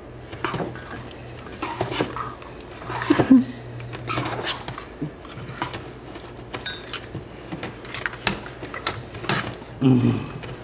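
A spoon stirring batter in a pot, with irregular clinks, knocks and scrapes against the pot's sides.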